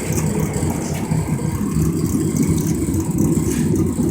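Homemade metal-melting furnace firing: a steady low rumble of the burner and its forced air blast, heating a crucible of brass dross.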